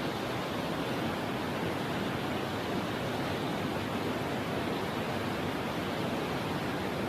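Steady rush of river whitewater.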